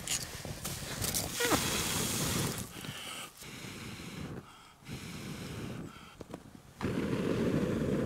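A person blowing long, hard breaths onto smouldering kindling to coax a campfire into flame: several breathy blows about a second each, the last and loudest near the end. The wood is damp and slow to catch.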